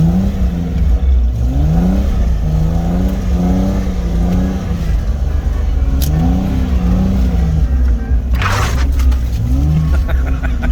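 Jeep engine revving up and down over and over, a rise and fall about once a second over a heavy low rumble, as on an off-road trail. Two short bursts of rushing noise break in, one about eight seconds in and one near the end.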